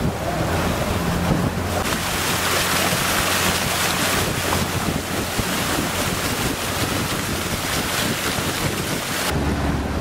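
A motorboat's engine running steadily under way on a river, with water rushing past the hull and wind buffeting the microphone. The wind rush is strongest from about two seconds in until near the end.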